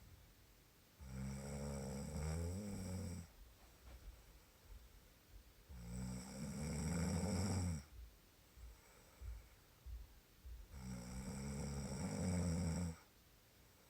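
Snoring: three long snores about five seconds apart, each lasting about two seconds, with softer breath noises between them.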